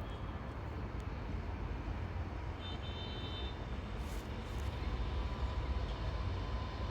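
Steady low outdoor rumble with hiss, slowly growing a little louder, with a short high-pitched chirp about three seconds in.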